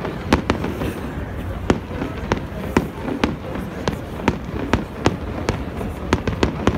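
Fireworks going off in a rapid, irregular series of sharp bangs, about two or three a second, coming closer together near the end.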